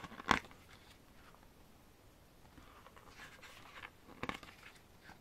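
Paper pages of an album photobook being turned by hand: a sharp page flick shortly after the start, a soft paper rustle around three seconds in, and another flick about a second later.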